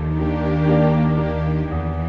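Background music with long held chords; the harmony shifts near the end.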